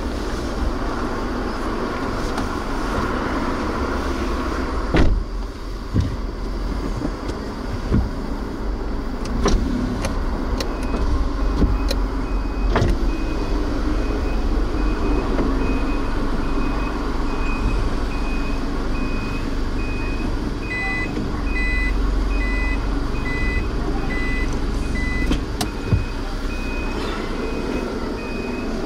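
Car engine and low cabin rumble heard from inside a slowly maneuvering car, with a few sharp clicks. From about a third of the way in, a long run of short, evenly spaced high beeps, joined for a few seconds past the middle by a second, lower series of beeps.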